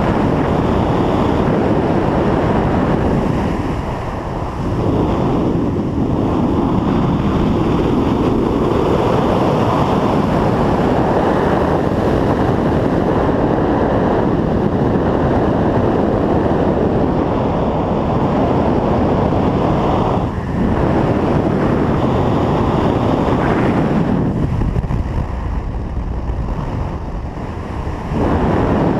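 Rushing wind blasting over the camera microphone in skydiving free fall, a loud steady roar. It eases briefly a couple of times and drops for a few seconds near the end before coming back at full strength.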